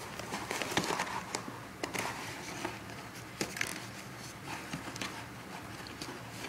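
A plastic packaging tray crinkling and crackling as it is handled, with scattered sharp clicks.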